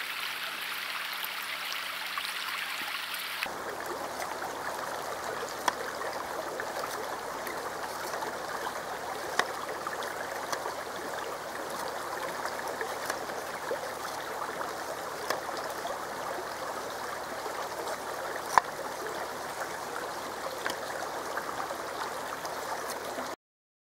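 River water rushing steadily over rocks, with a few sharp clicks standing out now and then. The sound cuts off abruptly near the end.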